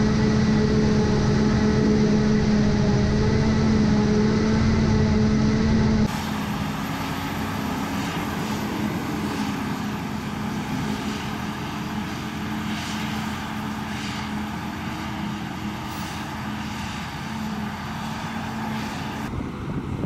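Claas self-propelled forage harvester running steadily while chopping standing corn for silage: a loud, even engine drone up close, which drops abruptly about six seconds in to a quieter, more distant drone.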